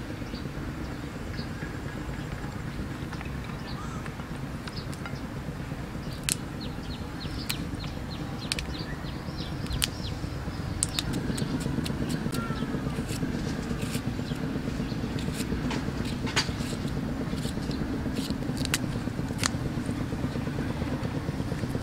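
Small clicks and soft taps of hands laying rice noodles and herb leaves into a bowl, over a steady low outdoor rumble that grows slightly louder about halfway through.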